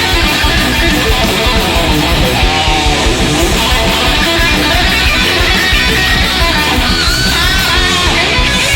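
Loud guitar-driven background music with a steady beat.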